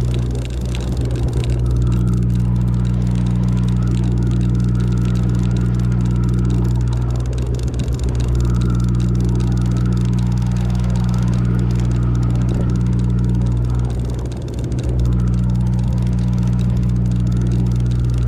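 Sportfishing boat's inboard engines running under way, a steady deep drone with a brief dip about fourteen seconds in.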